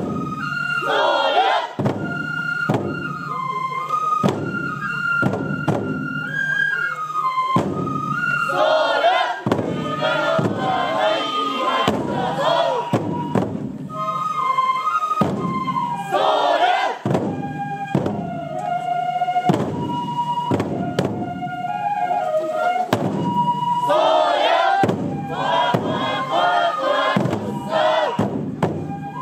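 Japanese festival music: a bamboo fue flute plays a stepped melody of held notes over steady taiko drum strikes. Voices join in with group shouts several times.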